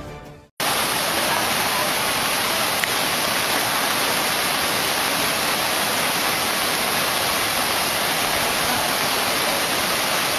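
Muddy floodwater rushing steadily across and around a steel truss railway bridge's tracks: a constant, even rush of water that starts abruptly about half a second in.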